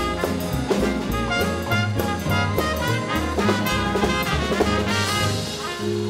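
Swing big band playing an instrumental break tune: saxophones, trumpets and trombones over drum kit and a stepping bass line, closing on a held chord near the end.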